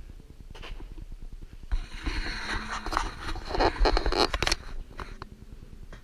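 Rustling and scraping handling noise on the phone's microphone as the camera is swung around, dense from about two seconds in until about four and a half seconds.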